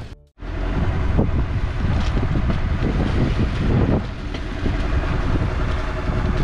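Wind buffeting the microphone over the rush of sea water as a sailboat moves through the waves; a steady, dense rumble that begins after a brief silent gap near the start.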